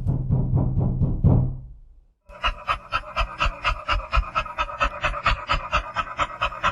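Two sound effects in a row. First, about two seconds of rapid strikes over a low hum that fade away. Then, after a short gap, a fast even pulsing of about five beats a second.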